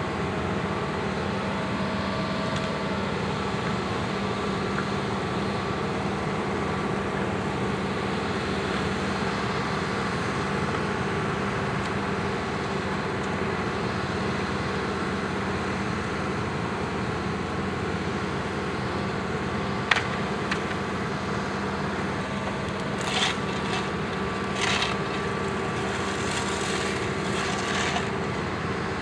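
Bitelli BB650 asphalt paver's diesel engine running steadily at close range. There is one sharp click about two-thirds of the way through and a few short scrapes and knocks near the end.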